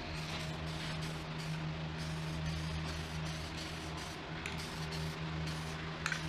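Aerosol spray can of trim paint hissing as a coat is sprayed, over a steady low hum, with a few brief clicks near the end.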